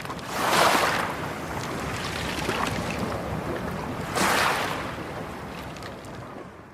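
Ocean waves rushing in, a noise that swells twice, about half a second in and again about four seconds in, then fades.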